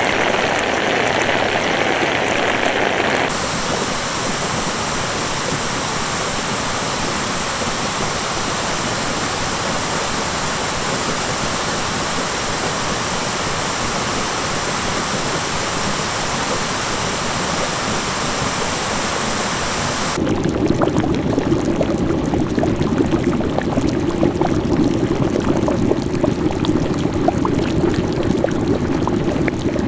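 Thermal spring water running, in three recordings joined by sudden cuts. About 3 s in it changes to a steady, even rush. About 20 s in it turns to a lower gurgling with many small pops, typical of bubbling hot water.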